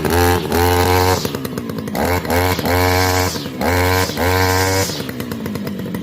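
DENKO 5436 brush cutter's small engine, just started, revved in about five quick throttle blips, each rising sharply and falling back, then settling to a lower steady idle near the end.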